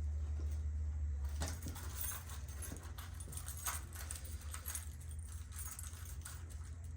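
Small metal parts clinking and rattling as bicycle parts are handled. A steady low hum drops away about a second in.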